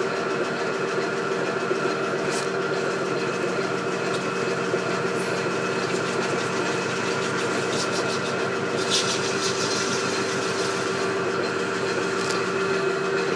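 Metal lathe running steadily with a constant motor and gear hum, with a brief hiss about nine seconds in.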